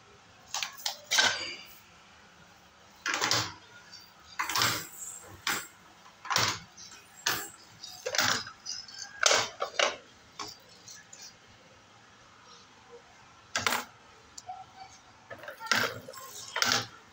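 Hard plastic toy pieces clacking and clinking, irregular single knocks a second or so apart, with a pause of about three seconds midway.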